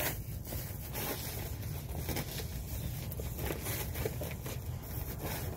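Rustling and crinkling of an insulated fabric delivery bag and its plastic wrapping being handled, with a few faint taps, over a steady low rumble.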